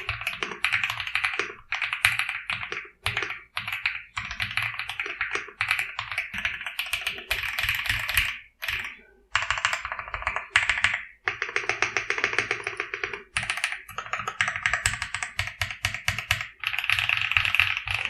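Typing on an Ajazz AC067 mechanical keyboard with Akko CS Purple Lavender tactile switches: fast runs of keystrokes in bursts of a second or two, broken by short pauses.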